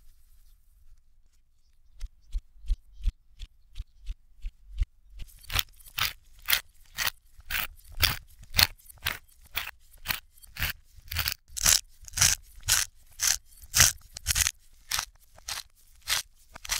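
Hand-twisted wooden spice mill grinding over a bowl of raw ground beef, played in reverse: a regular run of gritty crunching strokes, about two a second, starting about five seconds in. Before that come a few soft low thuds.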